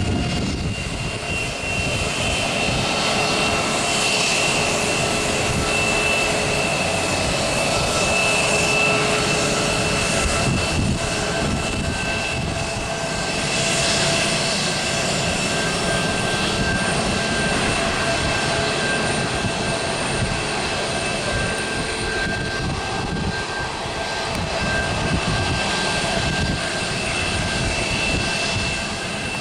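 Aircraft engine running steadily: a continuous rush with a high whine of several steady tones.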